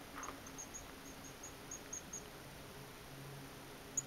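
Faint, rapid series of short high-pitched chirps from a small animal, about five a second, stopping after about two seconds and starting again near the end.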